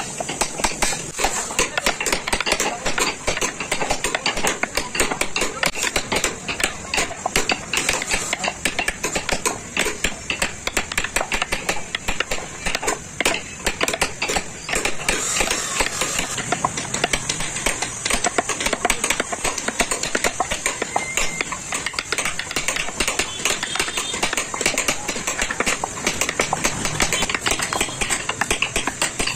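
A wooden mallet taps a small carving chisel into a wooden vase in a quick, continuous run of sharp knocks, cutting a decorative pattern into the wood.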